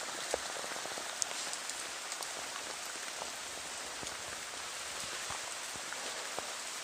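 Steady heavy rain falling on forest foliage, with scattered louder drops ticking close by.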